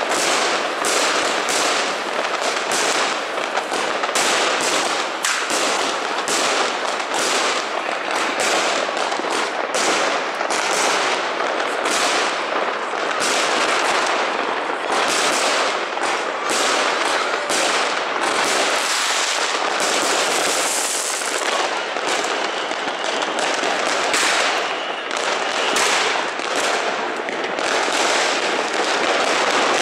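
Many fireworks and firecrackers going off at once: rockets and aerial bursts in a dense, continuous crackle of loud bangs and pops with no pause.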